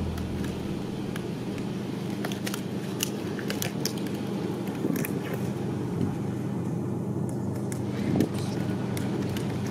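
Disposable gloves being pulled onto the hands, the material rustling and snapping in scattered small clicks, over a steady low engine-like hum.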